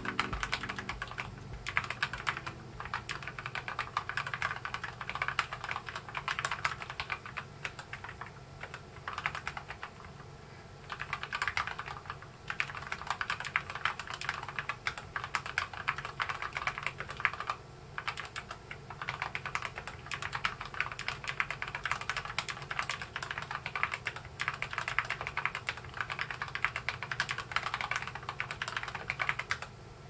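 Continuous fast typing on a Keychron K8 tenkeyless mechanical keyboard: a dense run of key clicks, broken by a few short pauses.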